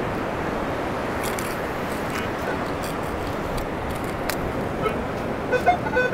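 Steady rush of surf and wind on the microphone. Near the end a metal detector starts giving short, steady beeps as it passes over a target.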